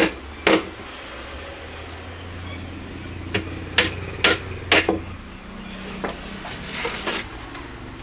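Hammer knocking on a wooden subwoofer box under construction: two sharp knocks right at the start, four more in quick succession a few seconds in, then a few lighter taps near the end.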